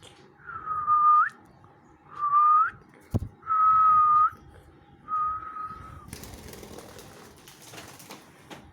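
Four long whistled notes at one steady pitch, each bending upward at its end, with a short click partway through. A soft rustling noise follows after the last whistle.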